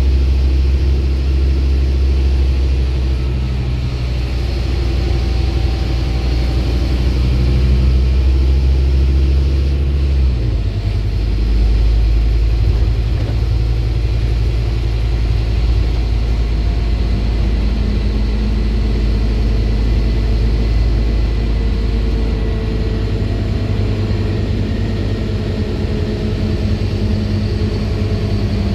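Scania bus engine and drivetrain heard from inside the passenger saloon while the bus is under way. The low engine note changes abruptly about ten seconds in, and a tone climbs slowly through the last third as the bus picks up speed.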